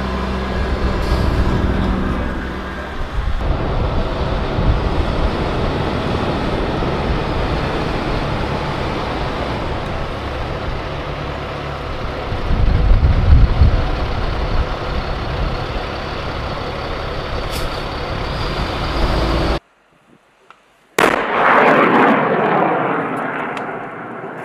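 Engines and tyres of a column of eight-wheeled armoured vehicles and military trucks driving past, louder for a moment about 13 seconds in as one passes close. After a sudden cut and a second of near silence, the loud rushing noise of a rocket launching from a rocket launcher, trailing off near the end.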